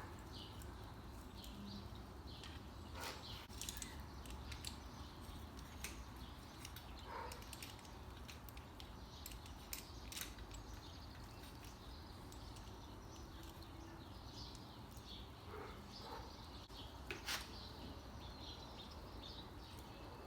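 Faint, scattered clicks and knocks of hand tools and bike parts being handled while a freewheel is set up in a vise with a freewheel removal tool, over a low steady hum.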